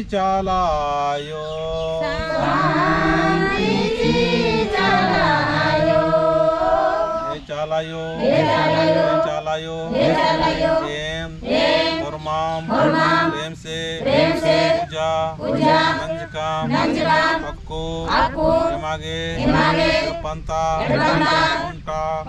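A man and a group of women singing a devotional prayer song together. The opening lines are drawn out on long held notes; from about eight seconds in the singing settles into short phrases repeated about once a second.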